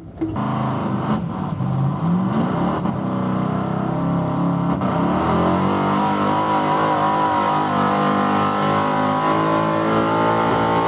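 Chevrolet square-body pickup's engine under full load pulling a weight-transfer sled, the revs climbing over the first few seconds and then held high and steady.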